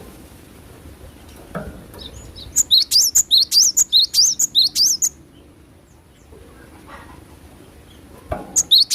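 Gelatik batu (cinereous tit) singing a rapid run of sharp, repeated chirps, about five a second, for some two and a half seconds, starting again near the end. Two soft thumps are also heard.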